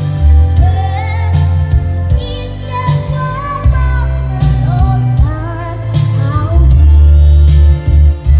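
A girl singing a song over a loud music backing track with a heavy bass beat. Her voice is a little hoarse from a cough and cold.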